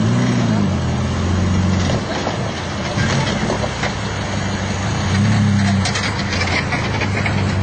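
Off-road 4x4 vehicle's engine running under load, its pitch dipping and then climbing again with the throttle, with bits of rattling clatter partway through.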